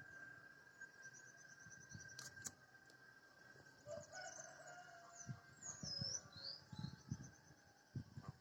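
Faint dawn ambience: a rooster crows once, about four seconds in, while small birds chirp. A faint steady high tone runs underneath, and there are a few low knocks.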